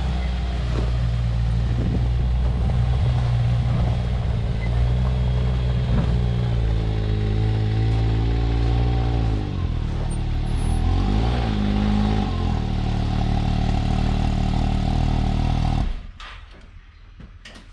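Can-Am Maverick X3 Turbo RR's turbocharged three-cylinder engine running steadily; its pitch falls and rises again about nine to twelve seconds in, then the sound cuts off suddenly near the end.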